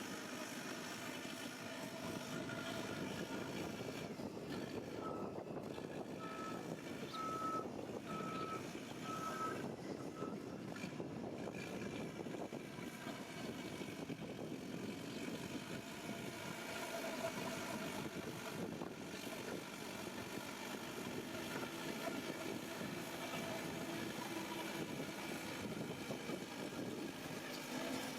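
Heavy earthmoving machinery engine running steadily. A reversing alarm beeps about five times, once a second, starting about five seconds in.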